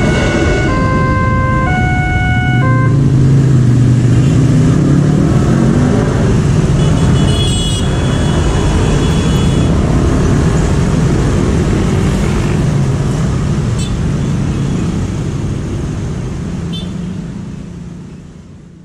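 A railway level-crossing's electronic warning alarm sounds in alternating tones for the first few seconds, then stops as the crossing reopens. What remains is the engine noise of motorcycles and cars driving across the crossing, and the sound fades out near the end.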